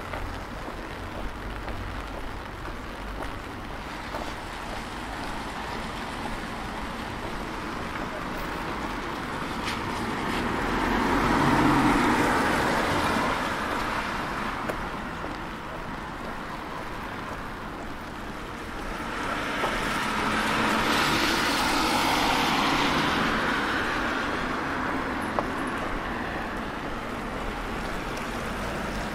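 Cars passing on a wet road, their tyre hiss swelling and fading twice, about ten seconds apart, over steady city traffic noise.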